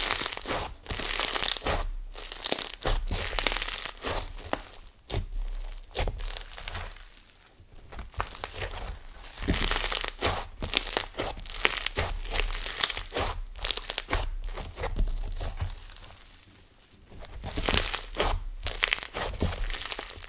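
Floam fizz slime, microfloam beads mixed with snow fizz, squeezed and kneaded in the hands, giving a crunchy, crackling sound. It comes in waves of squeezing with two brief lulls.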